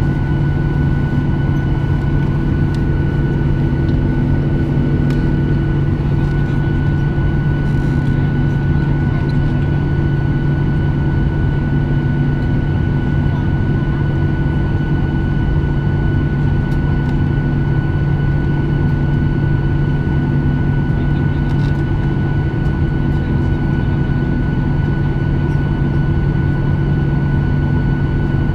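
Steady cabin drone inside a Boeing 737-800 standing on the ground, with its engines idling: a constant low hum with a few steady tones above it, unchanging throughout.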